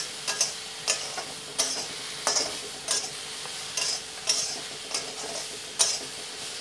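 A spatula scraping and stirring wet, washed pieces of dried Bombay duck (bombil) in a hot kadhai with no oil yet, about one scrape every two-thirds of a second over a faint sizzle as the water cooks off.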